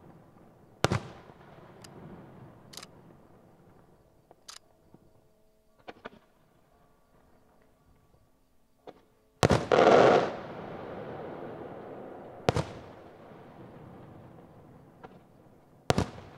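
Aerial firework shells bursting: loud sharp bangs several seconds apart with smaller pops between them. The loudest is a double bang about nine and a half seconds in, followed by about a second of loud noise.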